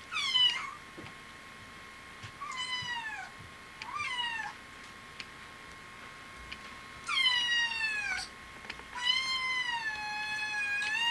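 A kitten meowing five times, high-pitched and falling in pitch; the last meow, near the end, is the longest, drawn out for about two seconds.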